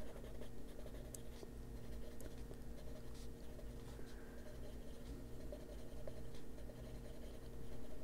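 Derwent Drawing coloured pencil scratching on paper in short shading strokes, over a faint steady hum.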